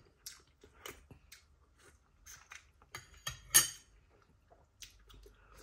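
Eating cooked squirrel meat by hand: scattered small wet clicks and smacks of chewing and of fingers pulling the meat apart, the loudest a sharp smack about three and a half seconds in.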